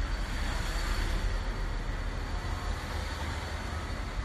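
Town street ambience: a steady hiss of distant traffic with a low wind rumble on the microphone.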